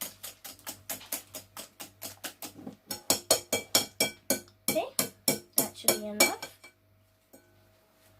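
A wire whisk beating eggs and sugar in a bowl, clicking against the bowl about five or six times a second, stopping about seven seconds in.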